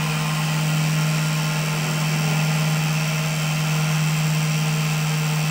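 Cotton candy machine's motor running with a steady, even hum.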